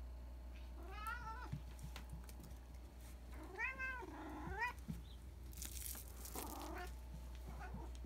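Long-haired black cat meowing: a drawn-out meow about a second in, a longer one in the middle, and a shorter, rougher call near the end.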